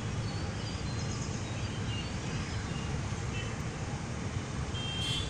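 Steady outdoor city ambience from a height: a low, even rumble with a few faint bird chirps above it.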